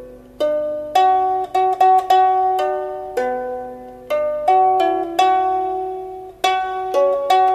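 Background music: a slow melody of plucked string notes, each struck sharply and then ringing and fading, sometimes two or three in quick succession.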